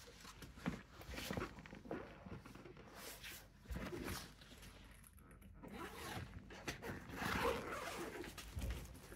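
Fabric camera backpack being handled and turned over: rustling of the material and straps with scattered light knocks, then a longer zipper pull in the second half as the main back compartment is opened.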